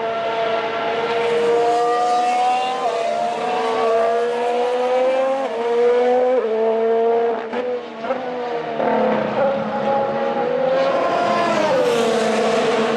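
Formula 1 car's Honda RA619H 1.6-litre turbocharged V6 accelerating at high revs. The pitch climbs steadily and drops sharply at each upshift, about three seconds in, again around five and a half and six and a half seconds. Near the end the pitch slides down.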